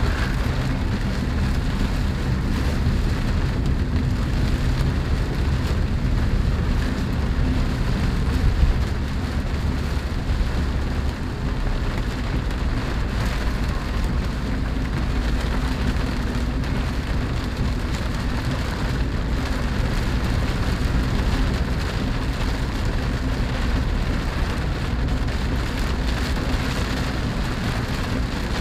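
Rain falling on the roof and glass of a moving Chevrolet Spark, heard from inside the cabin over the steady low hum of its engine and tyres. One brief thump comes about nine seconds in.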